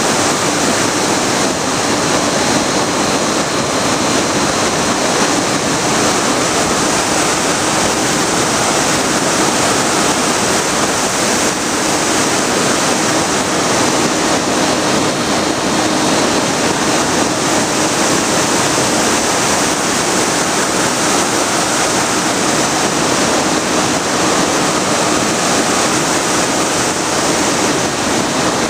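Steady rush of airflow over the microphone of a camera aboard a Bixler foam RC plane in flight, with a faint steady whine from its electric pusher motor and propeller.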